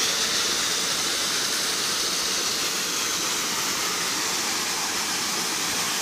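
Steady rushing of a small waterfall pouring into a pool, an even hiss-like water noise.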